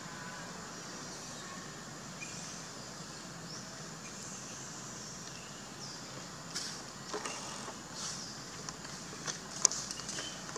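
Forest ambience: a steady hiss with faint high chirps, then a scatter of sharp clicks and snaps in the second half, the loudest about three seconds before the end.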